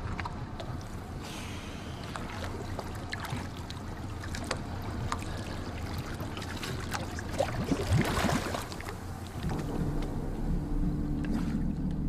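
Water sloshing and splashing against a diver and the side of a small boat, with many small knocks and drips and one louder splash about eight seconds in. Low steady music comes in near the end.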